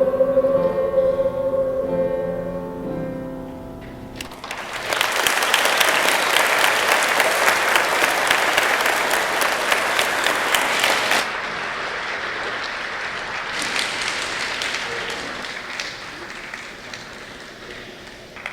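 A choir's final held chord ringing out and dying away, then audience applause breaking out about four seconds in. The applause is loudest for several seconds, drops off about eleven seconds in, and tapers away.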